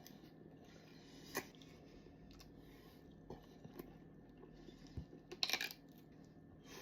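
A person biting into and chewing a chicken wing dipped in sauce, with a sharp crunch about a second and a half in and a louder cluster of crunches near the end.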